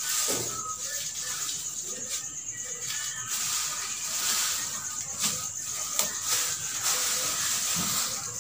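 Rustling and swishing of an artificial pine Christmas tree's plastic needle branches as they are bent and fluffed out by hand, with a few sharp clicks among it. Music plays faintly in the background.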